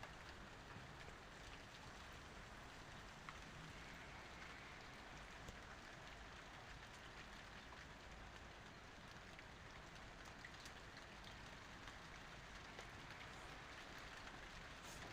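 Steady rain falling, a soft even patter with scattered faint drop ticks.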